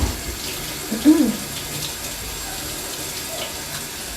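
Hot water running steadily from a kitchen tap over a knife blade, heating the knife. A brief voiced sound about a second in.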